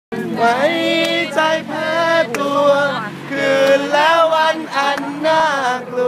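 Men singing a melody in long, drawn-out notes, with a few sharp clicks.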